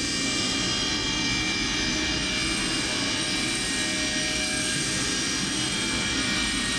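A steady mechanical drone, a low rumble with several thin, steady high whining tones over it, even in level throughout.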